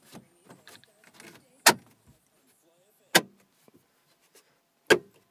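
Plastic dash trim bezel of a Chrysler PT Cruiser being pushed and tapped into place by hand: three sharp plastic knocks, about a second and a half apart, with faint clicking and rustling between them as its clips are snapped in.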